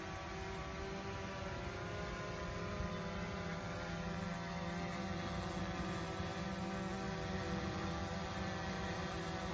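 Small quadcopter drone hovering low, its propellers giving a steady buzzing hum of several pitches together.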